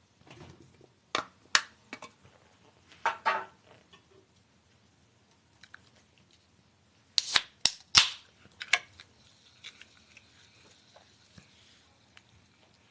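Scattered sharp clicks and knocks: a few singles, a quick cluster about three seconds in, and the loudest three in fast succession about seven seconds in.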